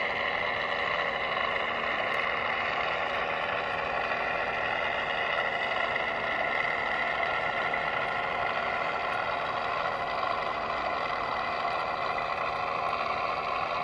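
Small radio-controlled model diesel locomotive running slowly along its track, a steady whine of several tones from its electric drive and gears.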